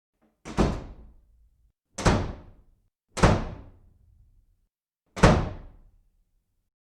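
Four loud bangs or thuds at uneven intervals, each sharp at the start and dying away within about a second.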